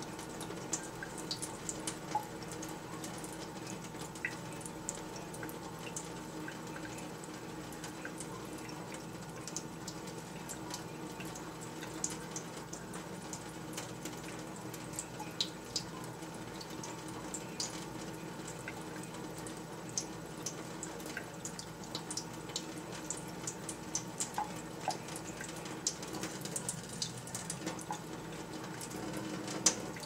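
A thin stream of tap water trickles from a kitchen faucet into a plastic funnel in a stainless steel sink. Many small splashes and drips come throughout as a green-cheeked conure bathes in the stream. A steady low hum runs underneath.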